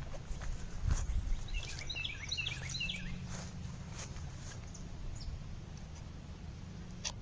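A bird chirping a quick run of short notes about two seconds in, over scattered footsteps and a steady low rumble.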